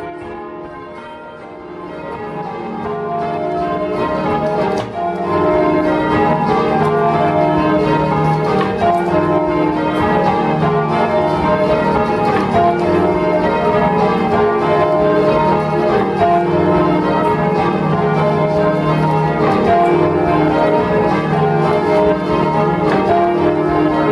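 A ring of six church bells (tenor in E flat) rung full circle by ropes, the strikes following one another in quick, continuous succession. The sound swells over the first few seconds and then holds steady.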